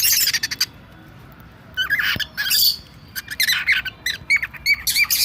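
Birds squawking in short, harsh calls, several times over, with a run of quick chirps near the end.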